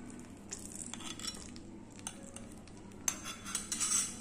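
Steel spoon scraping and clinking against a small pan as fried cashews are pushed out of it, in scattered strokes with a quicker run of scrapes near the end.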